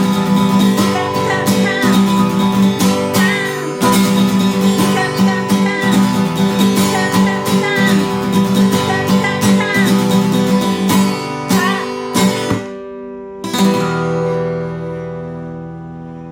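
Guitar strummed hard in fast, even strokes, breaking off about twelve seconds in; a moment later a final chord is struck and left to ring out, fading slowly.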